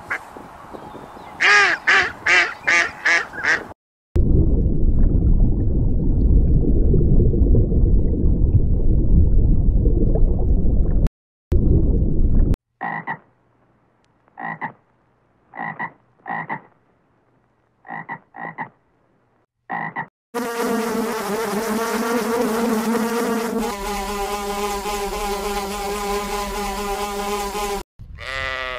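A run of short animal clips cut together: rapid repeated calls, then a dense low croaking for several seconds, then about a dozen short high chirps spaced roughly a second apart, then a steady buzzing drone that drops slightly in pitch partway through.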